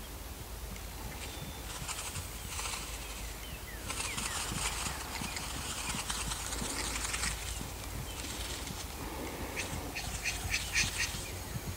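Hooves of a Dutch Harness Horse mare trotting and cantering loose in a sand arena, scuffing and crunching in the footing in several stretches, with a quick run of sharp clicks near the end.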